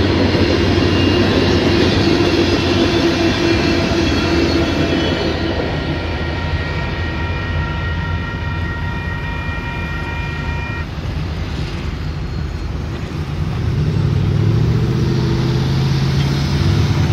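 Freight cars of a Union Pacific manifest train rumbling over a grade crossing while the crossing bell rings steadily. The bell cuts off about eleven seconds in as the train clears, and road cars then drive across the tracks.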